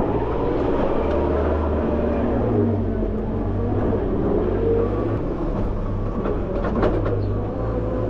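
JCB Loadall 531-70 telehandler's diesel engine running under changing load from inside the cab, its pitch rising and falling as the machine manoeuvres with a bucket of cattle muck. A few light clicks come near the end.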